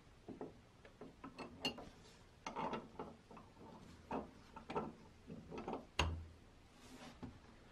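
Cast-iron hand-cranked meat grinder (Universal Food Chopper) being reassembled by hand: irregular light metal clicks and short scrapes as the cutter and front ring are fitted and screwed on, and a sharp knock with a dull thud about six seconds in as the grinder is pressed down on the wooden workbench.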